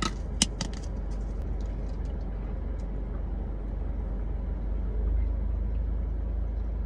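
A steady low rumble, with a brief click about half a second in and a few faint ticks after it.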